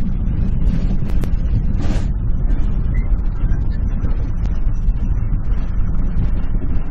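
An RV driving down a highway, heard from inside the cab: a steady low rumble of road, engine and wind noise, with a few faint clicks over it.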